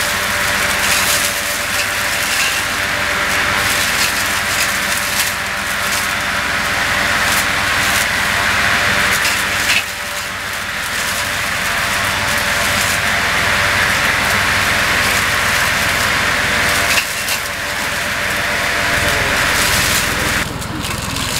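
Tractor engine running steadily while a tractor-mounted B.M.V. FL200P pruning cutter bar trims apple trees, with a dense stream of sharp snapping clicks as branches and twigs are cut.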